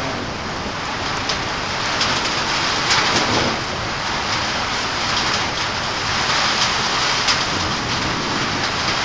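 Heavy rain pouring down: a loud, steady hiss of rain with many sharp individual drop hits standing out.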